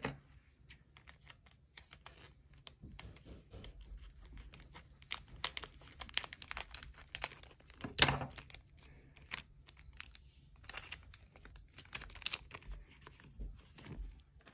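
Crinkling and crackling of a foil Pokémon card booster pack being handled and cut open with scissors, in scattered bursts, the loudest about eight seconds in.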